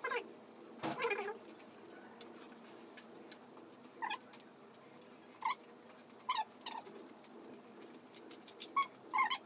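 Short, high cries of a small animal, about six of them, the loudest about a second in. Under them are light clicks and smacks of eating from plates and a steady low hum.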